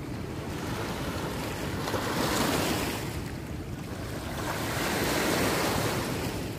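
Rushing water of a high, fast-flowing river in flood, with wind buffeting the microphone. The noise swells about two seconds in and again about five seconds in.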